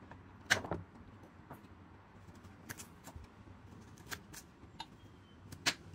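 Kitchen knife slicing raw carrots on a wooden cutting board: about seven sharp, irregularly spaced knocks as the blade cuts through and strikes the board, the loudest about half a second in and near the end.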